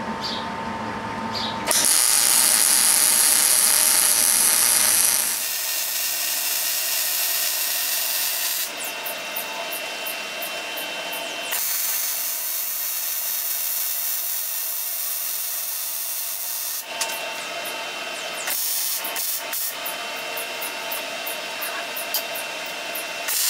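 Electric arc welding steel gussets, laying solid weld beads: a continuous crackling sizzle that starts about two seconds in and shifts in loudness and tone every few seconds as the weld goes on.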